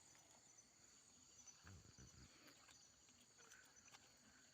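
Faint, steady high-pitched chirring of insects.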